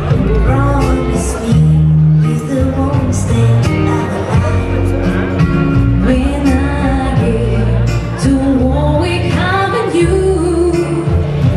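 A song performed by a vocal group: voices singing a melody over an instrumental backing with a low bass line and regular percussion hits.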